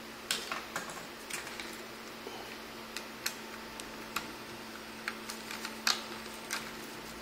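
Irregular small clicks and taps, a few a second, of a replacement daughterboard and its connector being seated by hand into a netbook's plastic chassis, over a faint steady low hum.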